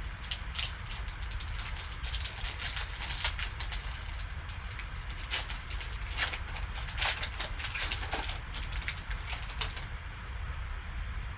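Crinkling and rustling of a trading-card pack's wrapper being handled and torn open, in dense crackles that stop near the end, over a steady low hum.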